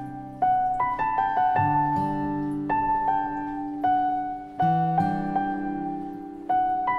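Slow, gentle piano music: notes and chords struck and left to ring away, a quiet melody over low held notes, with a new note or chord about every half second to second.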